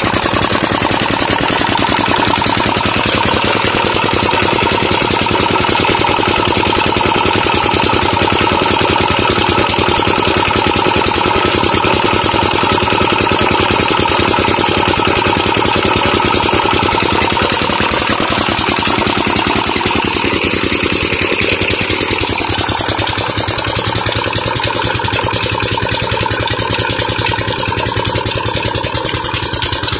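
Old Petter single-cylinder diesel engine running steadily under load, driving a tube-well pump by a flat belt, with a fast, even beat of its firing.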